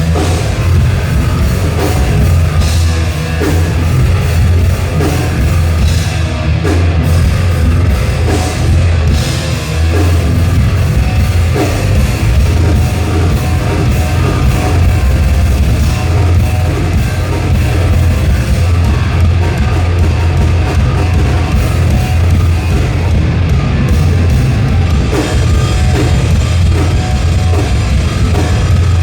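Live thrash metal band playing: distorted electric guitars, bass and a pounding drum kit, loud and dense throughout.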